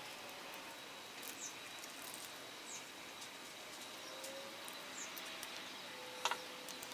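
Quiet hand work on a motorcycle carburetor: a few faint high chirps over a low steady hiss, then about six seconds in a couple of small sharp clicks as a screwdriver tip meets the brass main jet being fitted.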